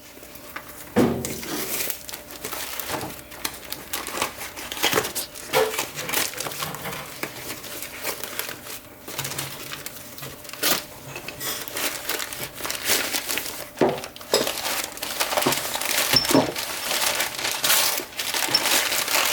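Cardboard parts box being opened by hand, its packing material crinkling and rustling, with irregular short knocks and scrapes.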